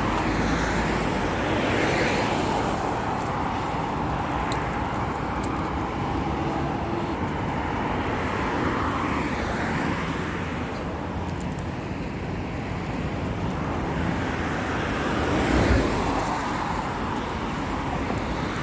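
Steady road traffic noise from an expressway, with vehicles swelling and fading as they pass; one pass is louder about three-quarters of the way through.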